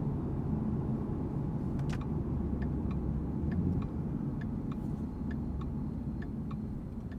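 Car engine running with a steady low rumble. A light, regular ticking, about three a second, joins in about four seconds in.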